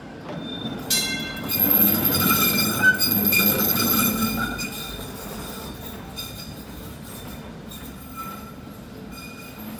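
Battery-electric tram passing on street rails, its wheels squealing on the curve: a high, ringing squeal that starts about a second in, is loudest for the next few seconds over a low rumble, then fades as the tram moves away.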